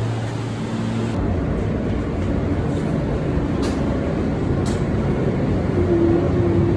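Passenger train running, heard from inside the car: a steady rumble of wheels on rails. A low hum drops out about a second in, and a few faint clicks come later.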